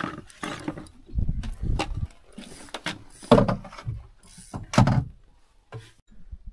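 Irregular knocks, clatters and rustling from something being handled, with two louder knocks about three and five seconds in.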